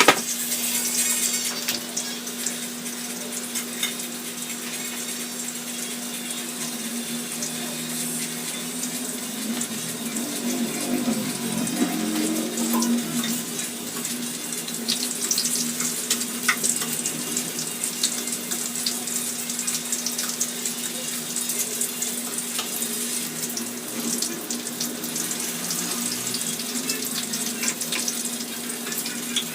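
Kitchen tap running steadily into a sink, a continuous splashing hiss, over a steady low hum.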